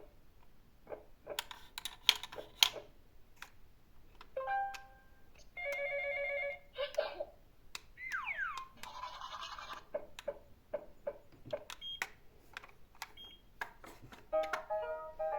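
Small plastic toy vehicles clicking and clattering. Short electronic toy sound effects play among them: a beep about four seconds in, a buzzing tone around six seconds, then a quick falling glide and a buzz.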